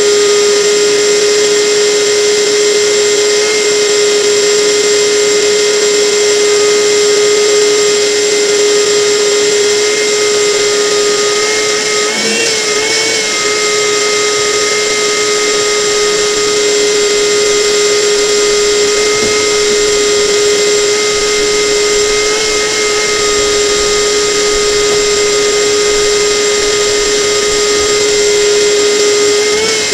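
A motor-driven tool running steadily with a high whine over a hiss, its pitch dipping and wavering briefly about 12 seconds in.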